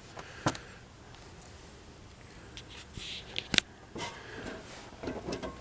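Faint scuffs and a few sharp knocks from a wooden ladder being handled at the roof edge; one knock comes about half a second in and the loudest about three and a half seconds in.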